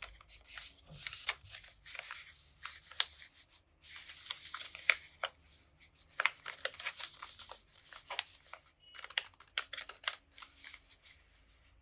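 Paper being handled: irregular crinkling and rustling with sharp crackles, pausing briefly twice.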